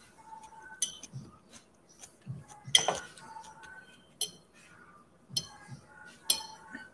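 A fork clinking and scraping against a food container while picking up pieces of broccoli rabe and garlic: about five sharp clicks spread through, the loudest about three seconds in with a short ring.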